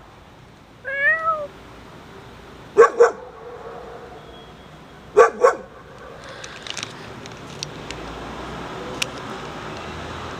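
A cat meowing: one drawn-out meow that rises and falls about a second in, then two quick pairs of short, louder meows around three and five seconds in.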